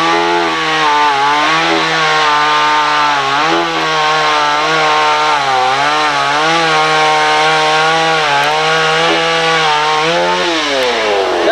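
Two-stroke chainsaw held at full throttle while cutting wood, its pitch dipping now and then as the chain loads in the cut. It revs back down near the end.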